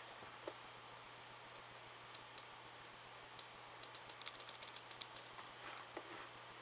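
Faint clicking of a computer mouse's scroll wheel as a web page is scrolled: a few single clicks, then a quick run of about a dozen notch clicks about four seconds in, over a low steady hum.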